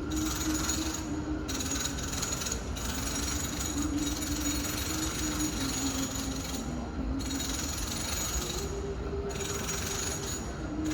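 Renovation noise from another room of the home: a power tool rattling in long stretches over a steady, wavering hum. Its rattle drops away briefly a few times.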